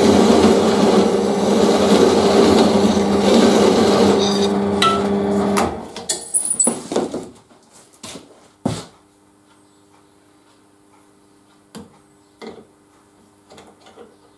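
A flat file rasping against a steel bolt-and-nut spacer spinning in a bench drill press, the drill press motor humming steadily underneath. This is the part being filed down to a 10 mm collar. The filing stops about six seconds in, followed by a few sharp knocks as the part is handled.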